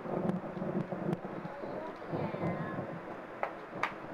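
Thunder rumbling low and rolling, with a few sharp ticks over it.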